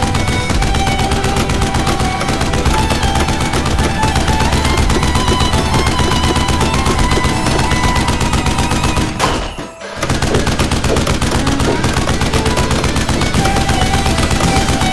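Rapid automatic fire like a machine gun, a fast unbroken stream of shots that breaks off briefly about nine and a half seconds in and then resumes, over background music.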